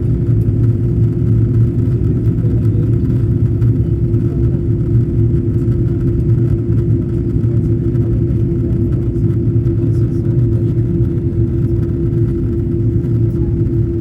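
Steady cabin noise of an Airbus A330 airliner in flight, heard from inside the passenger cabin: an even low rumble of engines and airflow with a steady hum running through it.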